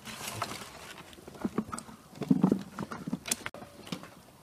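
Chopped green tomatoes, peppers and carrots being handled and packed by hand into a jar for pickling: irregular soft knocks and wet rustles with a few sharp ticks, busiest about two and a half seconds in.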